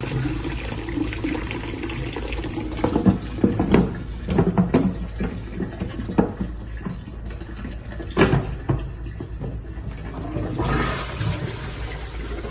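Water rushing through a toilet cistern as it is flushed and fills, with scattered irregular knocks and clicks.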